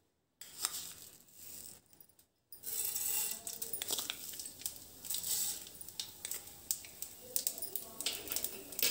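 Mustard seeds sizzling and crackling in hot cooking oil in a frying pan, a dense run of small pops and ticks that starts about two and a half seconds in. The seeds are beginning to splutter in well-heated oil, the tempering stage of cooking.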